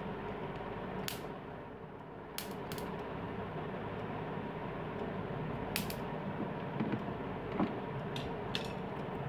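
About six sharp clicks at uneven intervals from an electric mosquito bat being held and tested, over a steady background hum.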